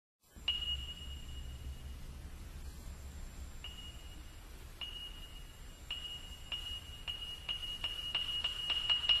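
Soundtrack sound design: a high ringing ping, like a sonar ping or chime, repeats faster and faster and grows louder over a steady low rumble, building up tension.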